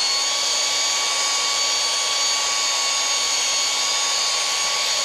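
Cordless drill running at a steady low speed, driving a cylinder hone in the bore of a Ford Barra engine block. Its motor whine holds one even pitch.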